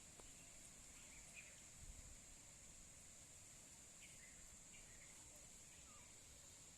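Near-silent outdoor ambience: a steady high insect drone with a few faint, short chirps.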